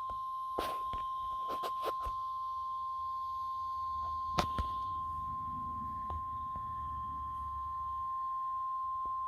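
Weather radio sounding the 1050 Hz warning alarm tone: one long, steady electronic beep that signals a weather warning is about to be broadcast. A few sharp clicks come under it, the loudest about four seconds in, followed by a low rumble for several seconds.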